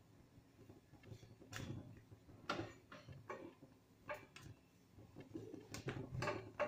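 Faint, irregular ticks and crackles as a papad roasts over a gas flame on a wire mesh roasting grill, the papad blistering and crisping in the heat.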